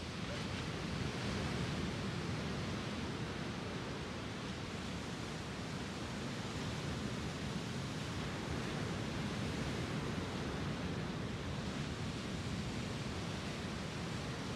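Small lake waves breaking and washing up a sandy beach: a steady rush of surf.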